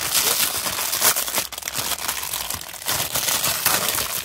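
Clear plastic packaging crinkling and crackling continuously as it is handled and pulled open by hand.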